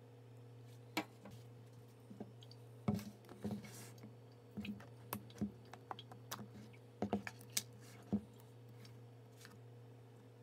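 Scattered light clicks and knocks of a measuring cup and a cocoa tin being handled on a kitchen counter, over a steady low hum.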